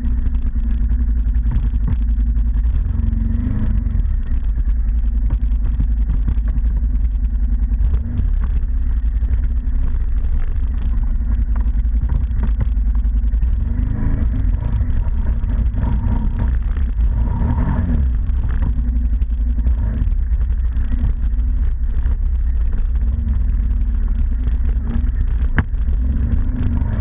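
ATV engine running steadily under way over a heavy low rumble, its pitch rising and falling a few times as the throttle changes.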